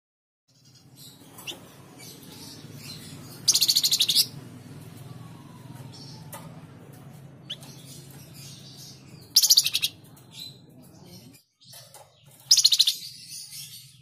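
Caged flamboyan songbird calling: three loud, rapid trilled bursts, each under a second long, about three and a half seconds in, at about nine seconds and near the end, with short chirps scattered between. A low steady hum sits underneath until about eleven seconds in.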